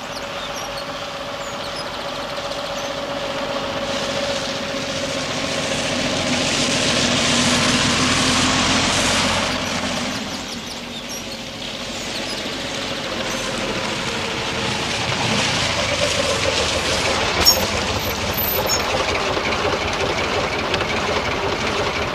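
Train running, a steady rattle and rumble of the wagons that swells and eases, with one sharp clack about seventeen seconds in.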